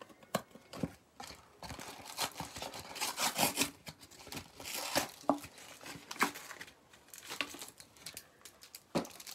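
Trading-card packaging, the hanger box and its wrapping, torn open and crinkled by hand, with irregular crackles and sharp clicks, busiest about three seconds in.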